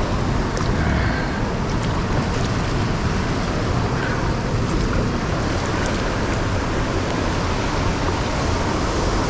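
Steady rushing of river current flowing over rocks, an even, unbroken noise.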